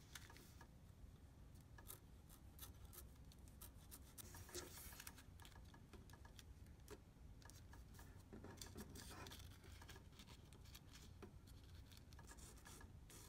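Faint rustling and scattered light ticks of thin rose window paper being folded and creased flat by hand.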